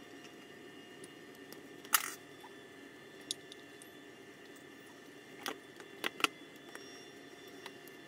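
A few sharp clicks and knocks of small parts and tools being handled on a workbench, the loudest about two seconds in and a quick cluster of three or four near the end, over a steady background hum.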